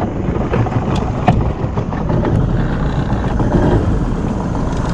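Small river boat's engine idling steadily, with a couple of sharp knocks about a second in.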